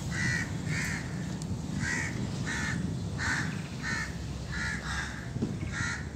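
A crow cawing over and over: about ten short caws at a steady pace of roughly one and a half a second, over a steady low rumble.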